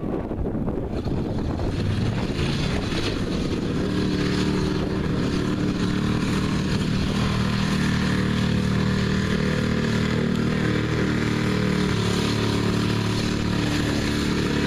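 Street stock pickup truck's engine pulling under load through a mud bog pit, its exhaust note building over the first couple of seconds and then holding steady.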